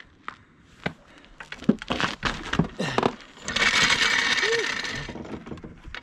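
Work gear being handled on a gravel driveway, with a floor jack being set up under a car: scattered knocks and clatter, then a rasping, scraping stretch of about a second and a half.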